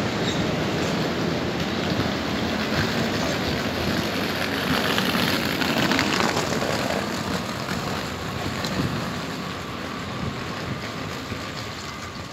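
EP07 electric locomotive running light along the station track, moving away, its running noise fading steadily.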